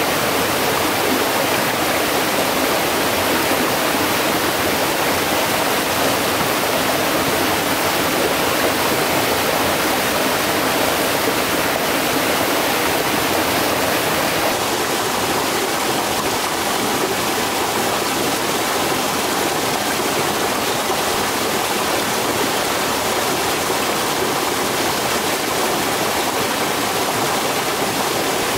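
Stream water rushing steadily, its tone shifting slightly about halfway through.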